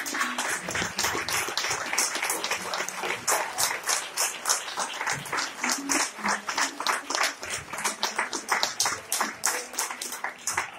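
Audience applauding, the claps landing together in a quick, even beat of about four a second.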